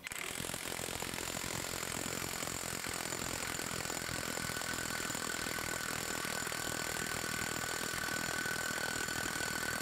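Craftsman CMCF940 brushless high-torque impact wrench hammering steadily at full trigger on a torque test rig, run in reverse for a 10-second maximum-torque pull. Rapid blows with a steady high whine over them, starting sharply.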